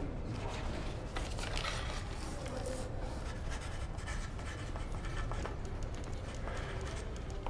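Pen scratching on paper with faint rustling, over a steady low hum of room tone.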